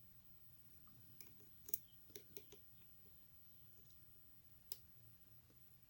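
Faint, scattered metallic clicks of a lock pick and tension wrench working the pin-in-pin stack of a Mul-T-Lock cylinder: a cluster of ticks in the first half and a single sharper click near the end.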